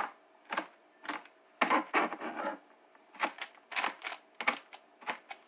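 Chef's knife mincing onion on a cutting board: a run of irregular knife knocks on the board, about two a second, some coming in quick clusters.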